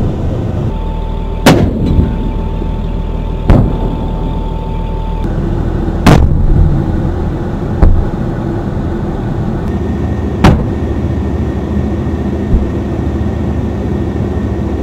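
The M1128 Mobile Gun System's 105 mm cannon firing and its rounds striking downrange: five loud, sharp booms about two seconds apart, then a fainter one, over a steady low rumble.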